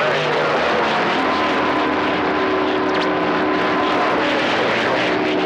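CB radio receiver playing band noise during skip: a steady hiss of static with several steady whistling tones from other stations' carriers running through it.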